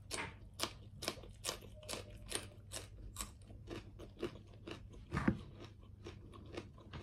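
A person chewing a mouthful of raw green pepper with steady wet crunches, about two a second. The loudest crunch comes about five seconds in.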